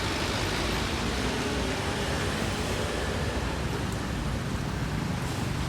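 Steady road traffic noise: passing vehicles' engines and tyres making a continuous rush, with no horn sounding.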